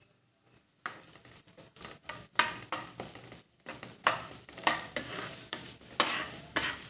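A spatula stirring sliced tindora (ivy gourd) with onion and curry leaves in a nonstick frying pan, starting about a second in: quick irregular scraping strokes over a light sizzle of frying in oil.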